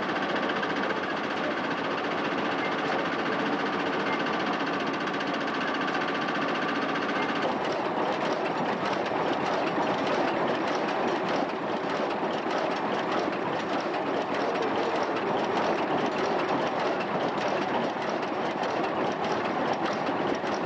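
Large vintage stationary engine with a heavy spoked flywheel running with a steady mechanical clatter. About seven seconds in, the sound turns denser and noisier.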